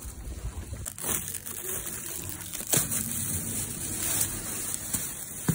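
A dark plastic bag crinkling and rustling as hands open it, with sharp crackles about halfway through and again near the end.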